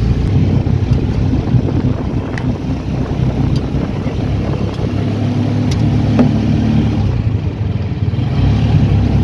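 A vehicle's engine running steadily as it drives along, with a continuous low rumble and a few faint clicks.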